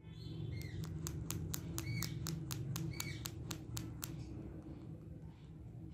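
Parrot making a rapid run of sharp clicks, about five a second, with a few short high chirps mixed in; the clicking thins out near the end.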